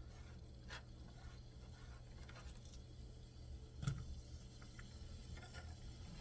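Faint light scrapes and clicks of chopped onions being moved about in a frying pan, with one louder knock about four seconds in, over a low steady hum.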